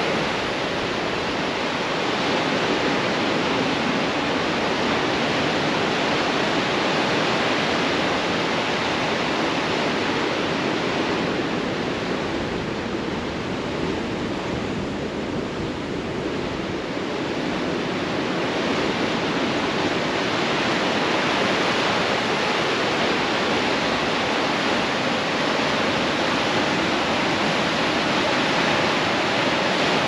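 Steady wash of sea surf breaking and running over a rocky, pebbly shore. It eases off for several seconds around the middle, then comes back up.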